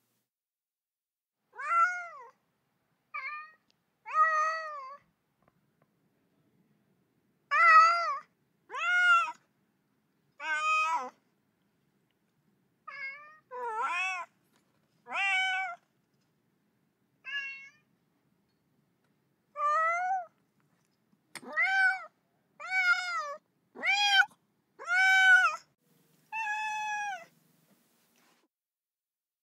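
A cat meowing over and over: about seventeen short meows with gaps of silence between them, each rising and then falling in pitch. They come closer together in the second half.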